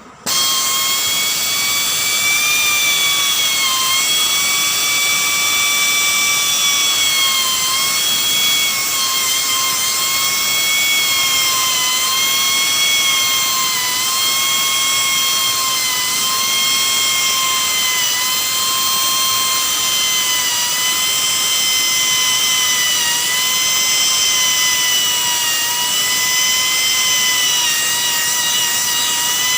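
A high-speed rotary power tool switches on abruptly and runs with a steady high whine, its pitch dipping slightly now and then under load. This is the drilling or buffing of the tyre around the puncture.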